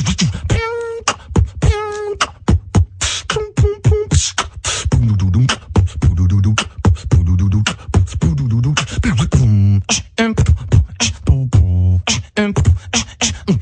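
Beatboxing: a single performer's mouth-made drum beat of rapid kick, snare and hi-hat clicks, with deep humming bass notes joining about five seconds in and short sung vocal tones mixed into the rhythm.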